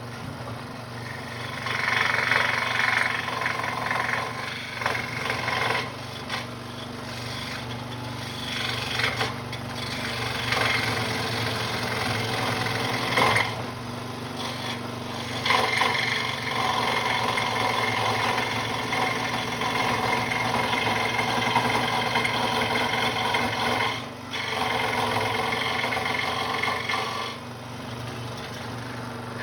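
Central Machinery scroll saw from Harbor Freight running, its reciprocating blade cutting wood with a steady rasping buzz over the motor's hum. The cutting noise eases off briefly twice, near the middle and near the end.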